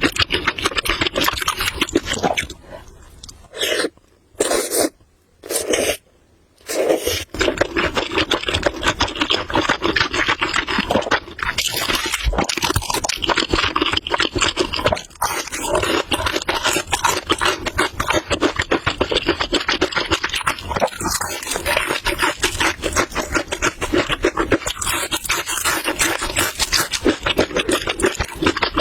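Eating noodles: a dense, continuous run of small wet clicks and smacks of chewing, with a few short pauses in the first seven seconds.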